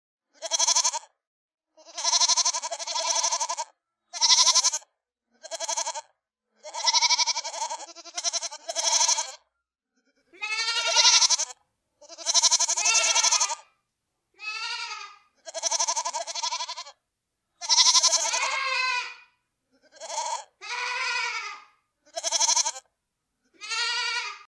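Goats bleating: a series of about fifteen separate bleats, each under two seconds, with short silent gaps between. Several bleats have a quavering, wavering pitch.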